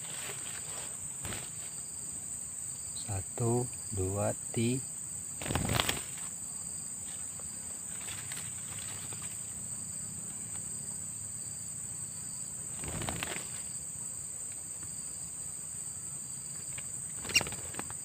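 Steady high-pitched insect chorus droning in the undergrowth. A brief low voice murmurs a few seconds in, and there are a couple of soft handling thuds and one sharp click near the end.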